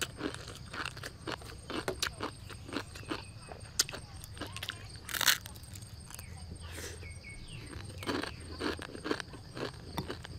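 Dry raw instant noodles being bitten and chewed, crunching in a steady run of about two to three crunches a second, with one louder, sharper crack about five seconds in.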